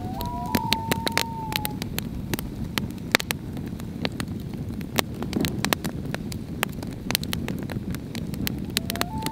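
Campfire of split logs crackling, with many sharp pops over a steady low rush of flame. A thin whistling tone, held for about a second and a half, sounds near the start and comes back near the end.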